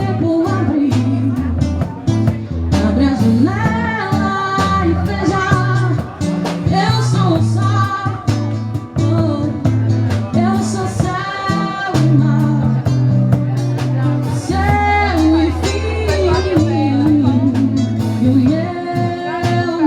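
Band music with a melody line over steady bass notes and a regular drum beat, guitar among the instruments.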